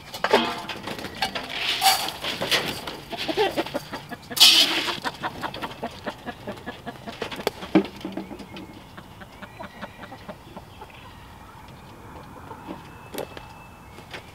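Backyard hens clucking in a mobile coop. In the first half there are loud, irregular clatters and rustles as a feed pan is handled and set down beside the coop.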